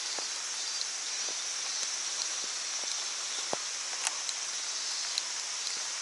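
Rain falling on the still water of a creek: a steady hiss with scattered sharp drop ticks.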